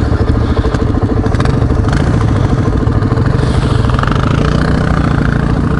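Suzuki DR-Z400 dual-sport motorcycle's single-cylinder engine idling with a steady, pulsing beat, picking up a little in speed about halfway through.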